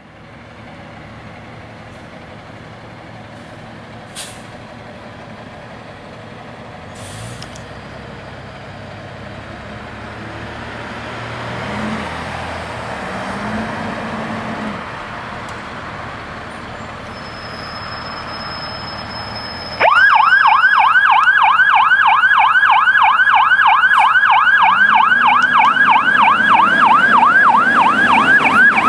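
Fire engine's engine running and revving as it pulls out, growing steadily louder. About two-thirds of the way through, its siren switches on suddenly in a fast yelp, rising and falling about three times a second, and becomes the loudest sound.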